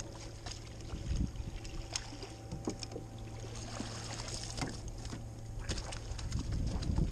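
Water splashing and dripping with small knocks as a landing net holding a stingray is lifted from the water over the boat's side and set down, over a steady low hum.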